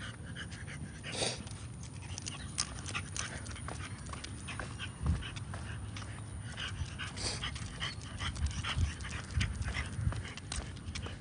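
French bulldog panting as it walks on a leash, with many short irregular clicks and a few low thumps.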